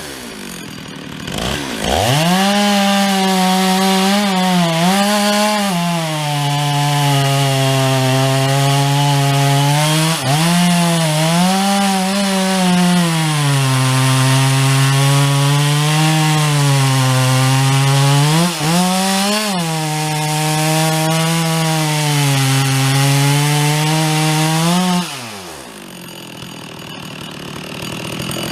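Stihl 066 two-stroke chainsaw revving up about two seconds in and cutting into a tree under load, its pitch sagging and recovering as it bites. Near the end it drops back to idle, then revs again.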